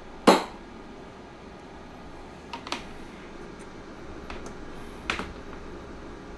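Sharp clicks from a microphone's jack plug being handled and pushed into a PA amplifier's mic socket. The first and loudest comes just after the start, with smaller ones about two and a half and five seconds in, over a steady background hiss.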